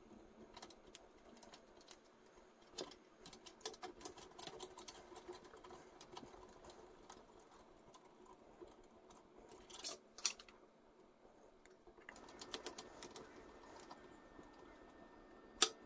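Faint irregular clicking and tapping of a screwdriver and small metal parts while the wiring of a model engine's starter motor is worked on, with a sharper click about ten seconds in and another near the end.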